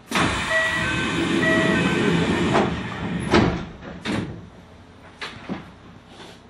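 Train passenger doors closing: a loud hiss lasting about two and a half seconds, with two short double beeps of the door-closing chime, followed by several separate clunks and knocks.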